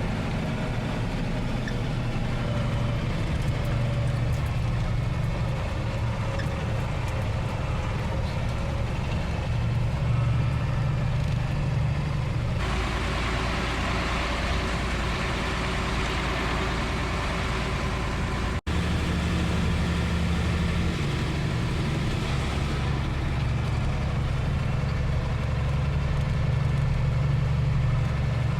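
Unimog truck's diesel engine running steadily under way, a low drone whose character changes abruptly about halfway through and again with a brief dropout about two-thirds in.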